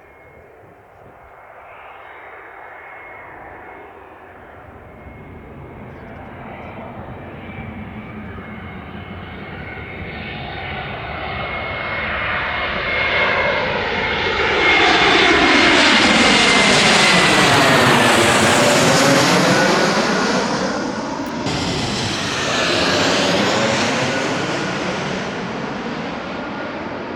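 Airbus A321neo with Pratt & Whitney PW1100G geared turbofan engines flying low overhead on final approach. The jet noise builds steadily, is loudest a little past halfway, then fades, with a high whine that drops in pitch as the aircraft passes.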